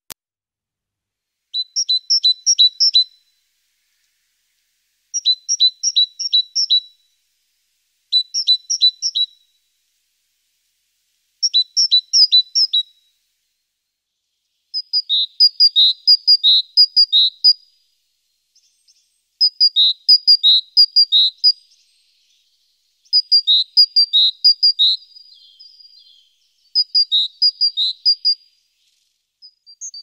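A small songbird singing, repeating the same short phrase of clear, high, quick notes eight times, with a pause of a second or two between phrases. The later phrases are longer and step back and forth between two pitches.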